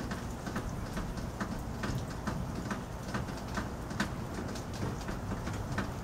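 Yellow-bellied sapsucker tapping at tree bark with its bill, short sharp taps about twice a second, over a steady low rumble of city background.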